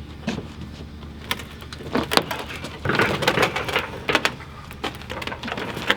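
Scattered metal clanks, knocks and scrapes as an engine on a chain hoist is eased in through a motorhome's side door.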